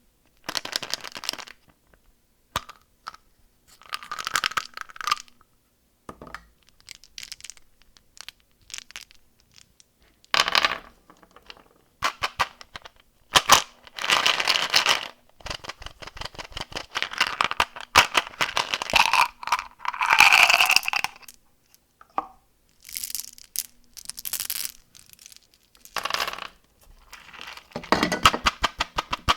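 Candy wrappers being torn open and crinkled in repeated bursts of crackling, with short pauses between handlings.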